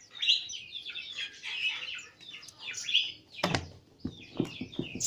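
Small birds chirping busily and without pause while being fed. About three and a half seconds in there is a sharp knock, followed by a quick run of fluttering taps.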